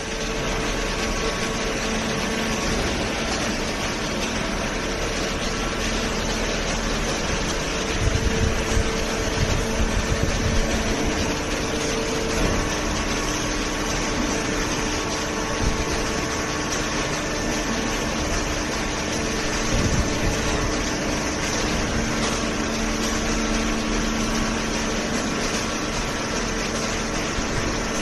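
Industrial cardboard shredding and baling line running: a steady, dense mechanical hum of electric motors, conveyor and hydraulic power unit with a few held tones. Louder, uneven low churning comes about eight to eleven seconds in and again near twenty seconds.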